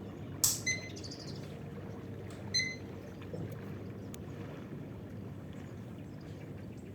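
Two short, high electronic beeps, each coming just after a sharp click, about two seconds apart, over a steady low hum.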